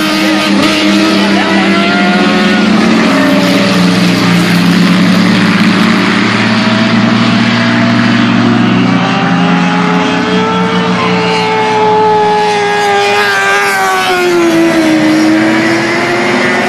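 Several race trucks' engines revving and easing off together as the field circles the track, their overlapping pitches rising and falling.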